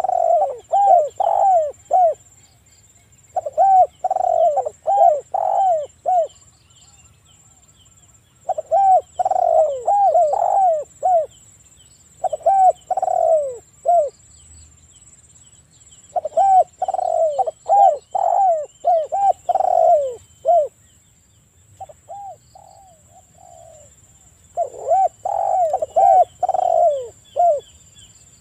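Spotted dove cooing: about seven bouts of four to six quick, rising-and-falling coos, each bout a second or two long and a few seconds apart.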